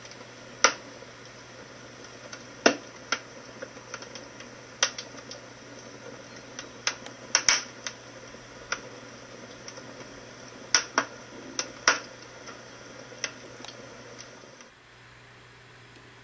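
Fire crackling: irregular sharp pops and snaps over a low steady hiss, stopping near the end.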